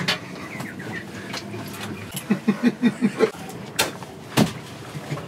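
A person's voice in a quick run of short sounds about two seconds in, then two sharp knocks.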